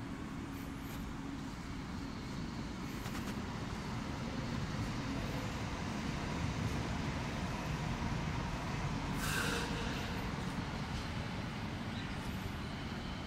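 Steady low rumble of distant road traffic, with a short hiss about nine seconds in.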